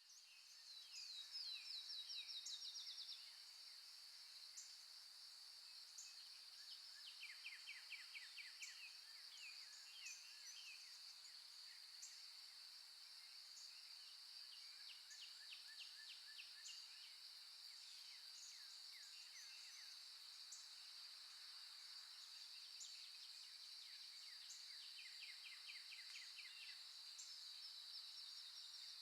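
Faint recorded birdsong ambience: several birds giving rapid trills and runs of chirps over a steady high-pitched hiss. A fast trill in the first few seconds is the loudest part.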